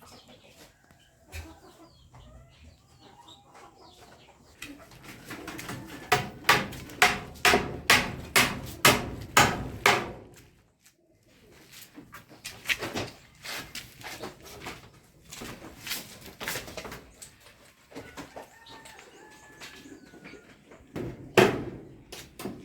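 Hammer blows on timber: a run of about ten strikes at roughly two a second in the middle, then a few single knocks, the loudest near the end. Chickens cluck faintly in the background.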